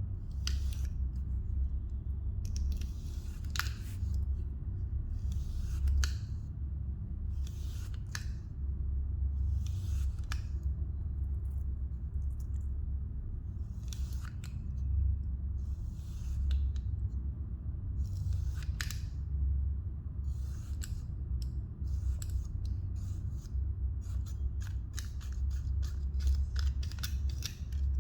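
Kinetic sand being cut with a blade: crisp, crunchy slicing strokes about every two seconds, coming in quicker succession near the end, over a steady low hum.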